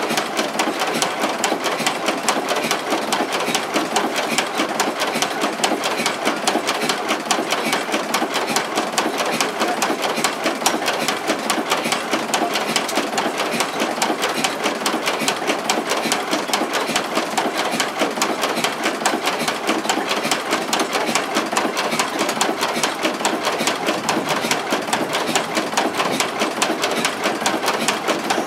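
Large Dutch-made vintage industrial diesel engine running steadily, with a fast, even mechanical clatter.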